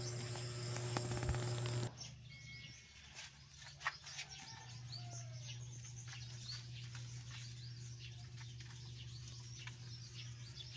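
A steady hum cuts off abruptly about two seconds in. Birds then chirp on and off over a faint steady low hum.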